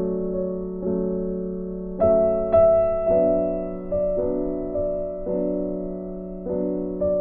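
Slow, gentle instrumental piano music: soft chords struck about once a second, each left to ring out and fade.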